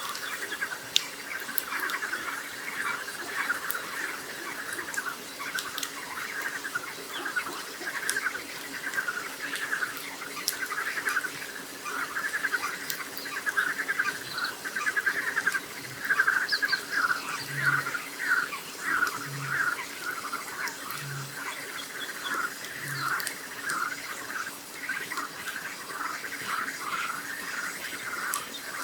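A dense chorus of frogs croaking and trilling without a break. About two-thirds of the way in, four low, hollow booms about two seconds apart, the call of a Eurasian bittern. Faint crackles from a campfire.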